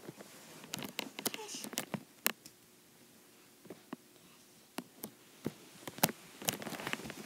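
Scattered sharp clicks and soft knocks of handling: hands moving a plush toy over carpet and bumping the camera. There is a quieter stretch in the middle and a burst of louder clicks near the end.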